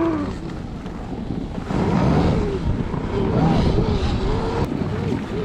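Electric snowbike with a snow track kit riding through deep snow. The track and snow make a dense rumble, and a thin motor whine wavers up and down with the throttle.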